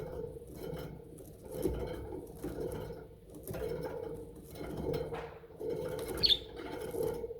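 Pet budgerigars chattering and warbling in short, irregular bursts, with one sharper high chirp about six seconds in.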